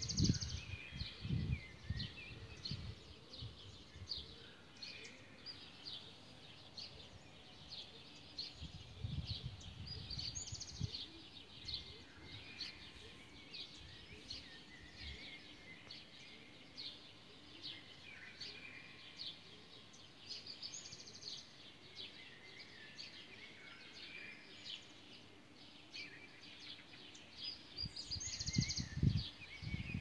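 Small birds twittering in an early-morning chorus: a steady stream of short, high chirps, with a higher trilling phrase returning about every ten seconds. Low bumps of wind or handling noise on the microphone come at the start, around ten seconds in and near the end.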